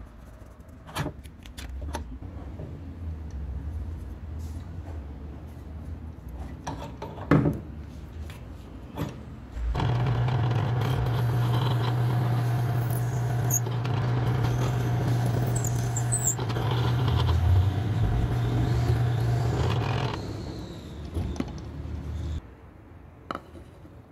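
Drill press motor starting about ten seconds in and running at a steady hum for about ten seconds while the bit bores through clamped wooden knife-handle scales, then switched off and winding down. Before it starts, a few small clicks and taps from handling the clamped piece.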